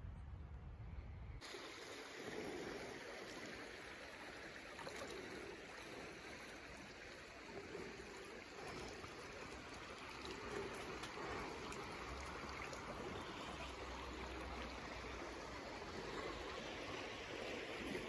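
A creek running over rocks: a steady, faint rush of flowing water that sets in about a second and a half in.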